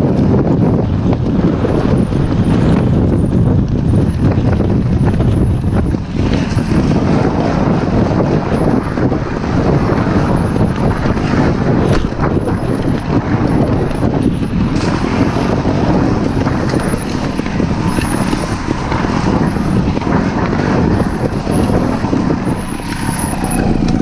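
Off-road motorcycle running steadily along a trail, its engine noise blending into a dense, loud rush without breaks.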